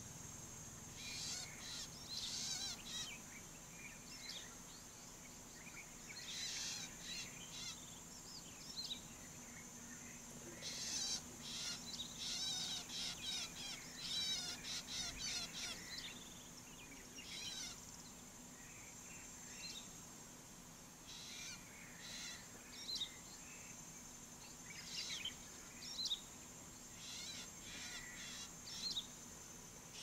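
Dawn chorus: birds calling in short bursts of chirps and trills, some spells busier than others, over a steady high-pitched insect drone.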